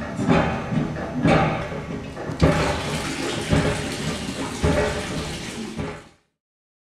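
Afridev hand pump being worked, its handle strokes knocking about once a second. About two and a half seconds in, water starts pouring from the spout and splashes steadily into a plastic bucket while the strokes go on. The water has reached the surface, so the pump works after reassembly. The sound cuts off suddenly near the end.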